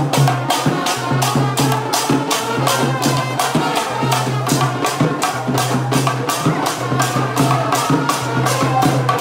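Traditional Sri Lankan perahera procession music accompanying a dance troupe. Sharp percussion strokes keep a steady fast rhythm of about three a second over a low held tone that pauses every second or so.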